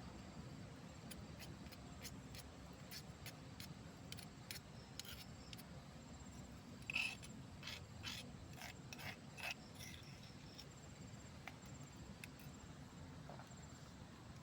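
A run of irregular light clicks and scrapes, with one louder knock about seven seconds in, over a faint low steady background noise.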